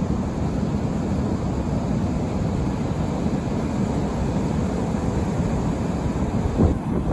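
Pacific surf washing over a rocky shore in a steady low rumble, mixed with wind on the microphone. There is a brief low thump near the end.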